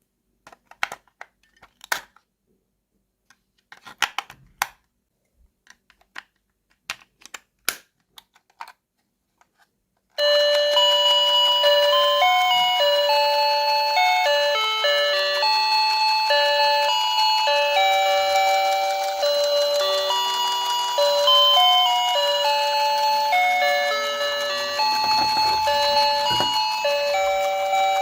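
Scattered light clicks and taps of plastic toy pieces being handled, then about ten seconds in the toy kitchen set's electronic sound module suddenly starts playing a beeping, chime-like melody of single stepped notes.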